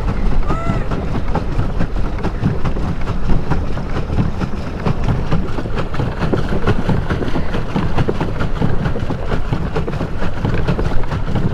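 Water splashing and churning around a pedal boat being pedalled, with wind buffeting the microphone in a steady, crackly rush.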